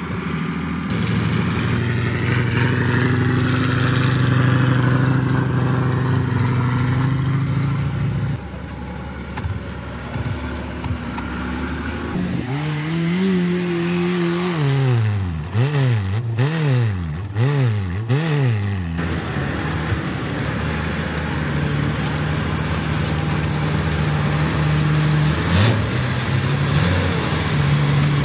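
Heavy off-road vehicle engines on a sandy track. At first a truck's engine runs steadily. Midway an off-road jeep's engine is revved high and held as it climbs a steep sandy bank, then rises and falls about once a second, four more times. Near the end a heavy engine runs steadily again.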